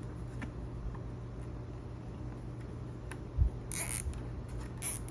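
A nylon cable tie pulled tight in two short zips, the first about three and a half seconds in, just after a low knock.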